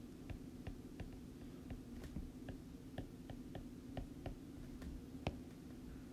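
Faint light taps and clicks of a stylus on a tablet screen while handwriting, about two or three a second, with one sharper tap about five seconds in, over a low steady hum.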